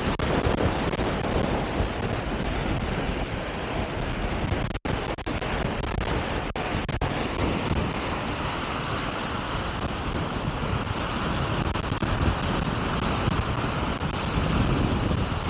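Steady rushing noise of wind on the microphone, with the sound of the sea, cutting out for an instant a few times around five to seven seconds in.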